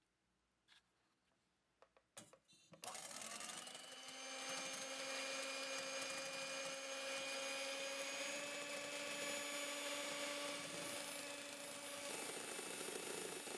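Electric hand mixer whipping egg whites in a stainless steel bowl. A few small clicks come first, then the motor starts about three seconds in and runs steadily, the beaters whirring through the whites. The sound shifts slightly near the end as the whites foam up.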